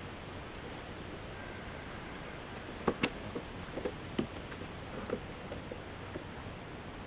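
North American river otters scrambling and tussling on a wooden boardwalk: a quick run of sharp clicks and taps about three seconds in, tailing off over the next two seconds, over a steady hiss.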